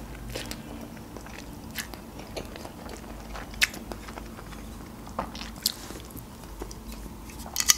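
Close-miked chewing of a mouthful of instant noodles, with scattered soft wet clicks and smacks from the mouth and one sharper click about three and a half seconds in.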